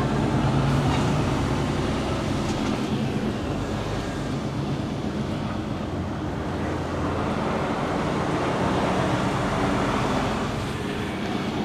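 Mercedes-Benz Actros lorry's diesel engine running steadily as the truck moves slowly, heard from inside the cab along with road noise.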